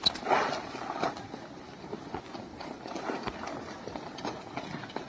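Ducks feeding: scattered short clicks and rustles, with faint calls now and then.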